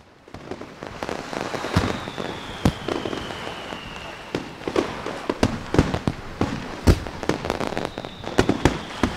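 Fireworks going off: sharp bangs at irregular intervals over a continuous noise, the loudest about seven seconds in. Twice a high whistle glides down in pitch.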